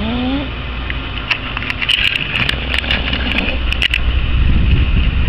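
A man snoring: a low, rough rumbling snore that swells to its loudest near the end, with a run of sharp clicks in the middle.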